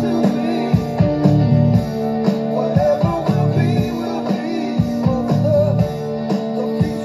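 Guitar-led rock music with a steady beat, playing through loudspeakers driven by a Soundcraftsmen A5002 Class H power amplifier.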